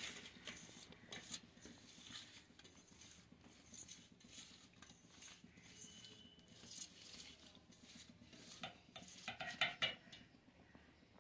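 A hand mixing small raw fish in a wet turmeric coating in a stainless steel bowl: faint wet squelching with soft clicks as the fish and fingers touch the bowl, a little louder for a moment near the end.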